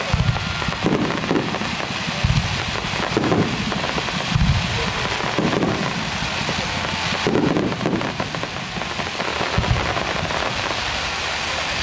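Fireworks display: aerial shells bursting with dull booms about once a second over a dense, steady crackle. Recorded on a camera's built-in microphone with fixed recording level, which blunts the bangs.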